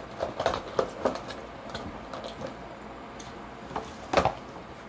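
Close-up eating sounds: wet chewing with scattered clicks and knocks from a fork and a cardboard food box, a louder knock about four seconds in.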